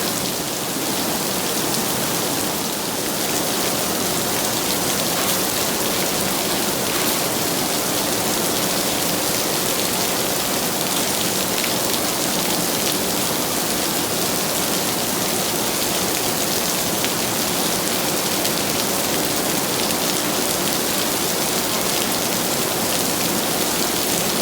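Heavy rain falling steadily, a dense hiss of drops hitting surfaces.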